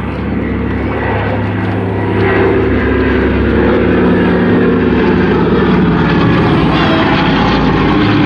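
Douglas DC-3 Dakota's two radial piston engines and propellers droning in a flypast, growing louder about two seconds in as the plane passes close overhead.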